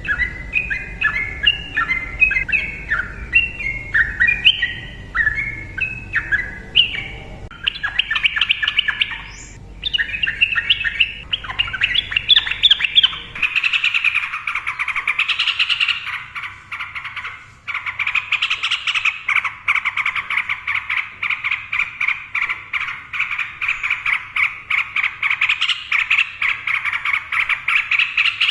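Yellow-vented bulbul (trucukan) singing: short bubbling phrases at first, then from about halfway through a long, unbroken run of rapid repeated notes.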